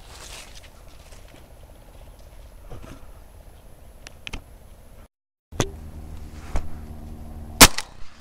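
A single loud shotgun shot about three-quarters of a second before the end, fired up at a turtle dove in flight. A fainter bang comes about a second before it, and there are a few small clicks earlier on against quiet open-field background.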